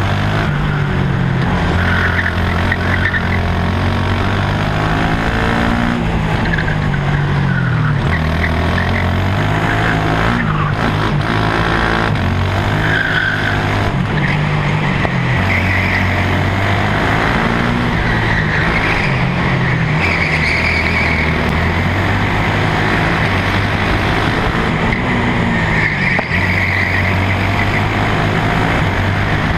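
KZ shifter kart's 125cc two-stroke engine running hard through a lap. Its pitch climbs and drops in steps over and over as it is worked up and down through the gears.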